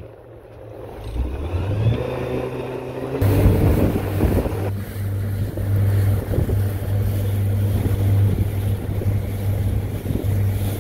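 Outboard motor on a 21-foot Carolina Skiff, rising in pitch as the throttle opens. About three seconds in, the sound changes abruptly to the engine running steadily at cruising speed, a low hum under rushing wind and water.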